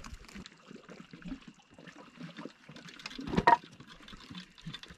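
Lake water lapping and splashing against shoreline rocks in small, uneven splashes, with one louder sudden sound about three and a half seconds in.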